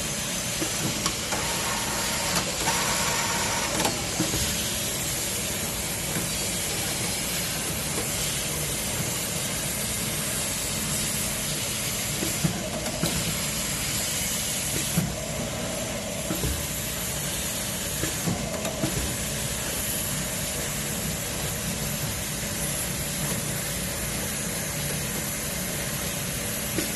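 Automatic fabric-cutting machine running: a steady hiss and motor hum, with a few light clicks.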